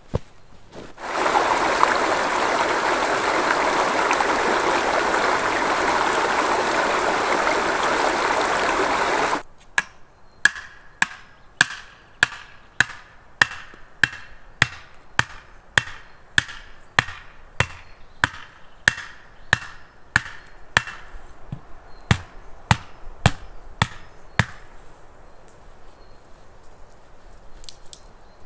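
A steady rushing noise for about eight seconds that cuts off abruptly, then a run of sharp, evenly spaced strikes, about two a second for some fifteen seconds, each with a short ringing note, like a tool striking repeatedly.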